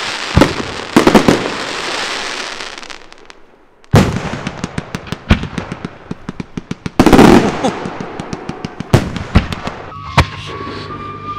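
Large aerial firework shells, 8-inch and bigger, going off: a long crackling hiss of burning stars with a few sharp bangs. After a brief lull, a sudden loud boom sets off rapid crackling and more booms. Music comes in near the end.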